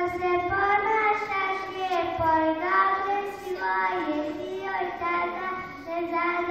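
Young children singing a song, with long held notes that glide from one pitch to the next.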